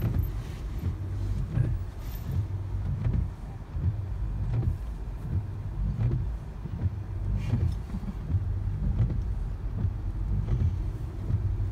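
Car interior noise while driving: a steady low rumble of the engine and tyres heard from inside the cabin.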